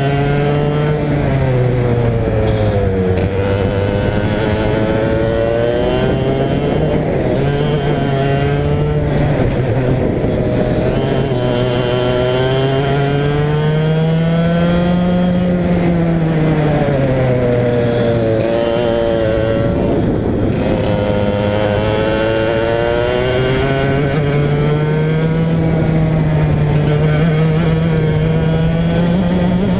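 Racing kart engine running hard on a lap, its pitch dropping as it slows for corners and climbing again on the straights, with a long steady climb near the end.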